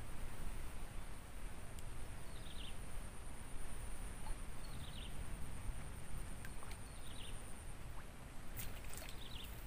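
Outdoor wildlife ambience: a steady high insect buzz and a short high bird call repeated four times about two seconds apart, over a low rumbling background noise, with a few faint clicks.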